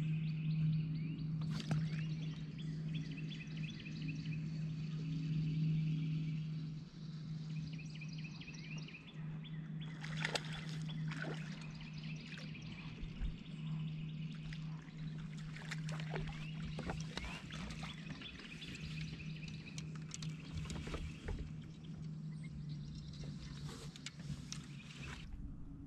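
Steady low hum of a bow-mounted electric trolling motor that cuts out near the end, with birds calling in the first several seconds. Scattered clicks and knocks follow as a crappie is landed and handled on the boat.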